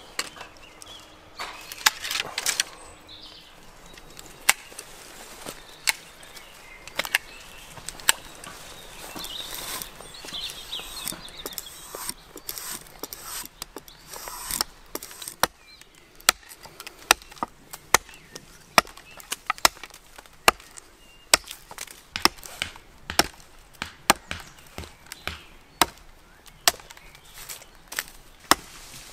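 Chopping into a wooden bowl blank with a short-handled edged hand tool: a steady series of sharp knocks, about one and a half strikes a second, through the second half. Before that come scattered sharper snips and knocks.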